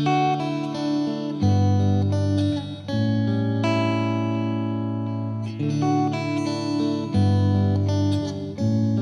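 Instrumental music: plucked, ringing string notes, guitar-like, over held low notes that change every second or two.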